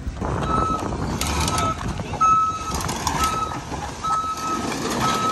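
Caterpillar excavator's travel alarm beeping about once a second, six times, over the steady running of its diesel engine as the machine moves.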